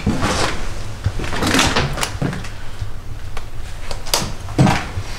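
Objects being handled and moved: a few rustles and knocks, with two sharper knocks a little after four seconds in, over a low steady rumble.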